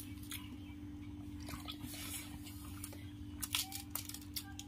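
Faint room tone with a steady low hum and scattered small clicks and soft taps, a little louder about three and a half seconds in.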